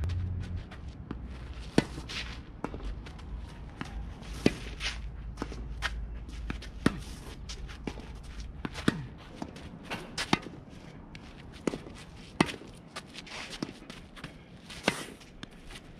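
Tennis shoes scuffing and stepping on a dirt court, with sharp tennis ball impacts every two seconds or so. A low rumble underneath fades about halfway through.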